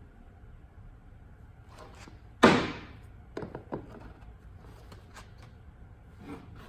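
A single loud bang about two and a half seconds in that rings out briefly, followed by a couple of lighter knocks and another soft knock near the end, over a low steady hum.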